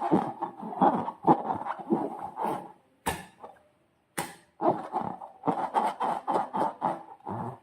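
Slime being squished and worked by hand: bursts of many small sticky crackles and squelches, with a short pause about halfway through.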